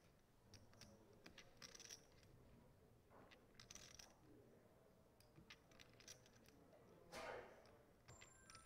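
Faint, quiet clicking and clattering of clay poker chips being handled at the table, in a few short spells, the loudest about seven seconds in.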